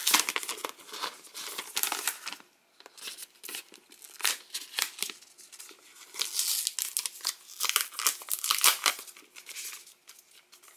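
Clear plastic wrapping being peeled off a new tablet and crinkled by hand, in irregular crackles with a short lull about two and a half seconds in.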